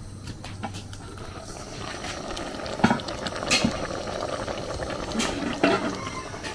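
A pot bubbling at the boil, its bubbling growing louder after the first second or so, with a few sharp knocks over it.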